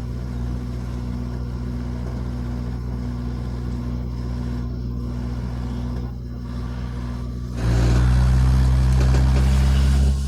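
Wheeled excavator's diesel engine running steadily, then rising in level about three-quarters of the way in as it is worked harder.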